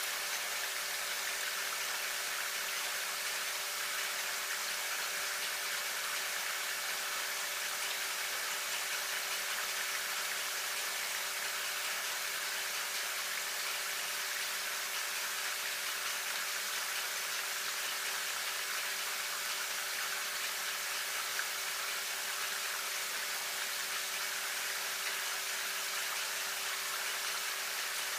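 Steady, even hiss with a faint constant hum underneath; no separate strokes or knocks stand out.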